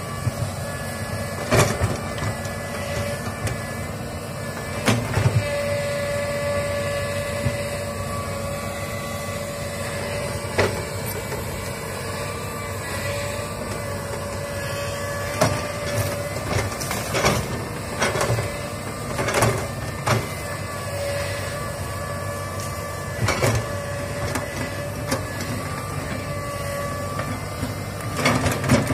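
Komatsu crawler excavator's diesel engine running steadily with a whine over it, while the bucket works through brush. Sharp knocks and cracks come at irregular intervals, several close together in the middle.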